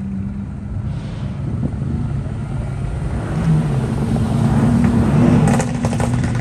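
Sports car engines running at low speed as a red Ferrari and then a Mercedes-AMG roll past close by over cobblestones, the engine sound growing louder as they come near, with a few sharp clicks near the end.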